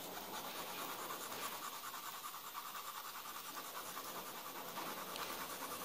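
Graphite pencil shading on paper with rapid, even back-and-forth strokes, a steady soft scratching as another layer of tone is laid down in a value scale.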